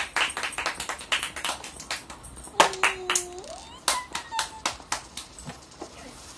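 Hand clapping, quick and even at about four to five claps a second, thinning out after about two seconds into a few scattered claps and taps. A brief held tone sounds once near the middle.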